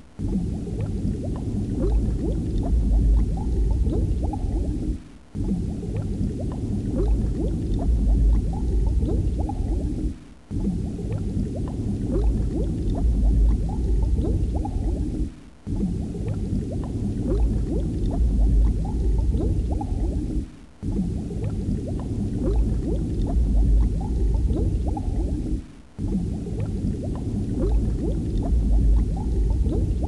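Looped underwater ambience: a low, dense bubbling of water that repeats about every five seconds, dipping briefly between repeats.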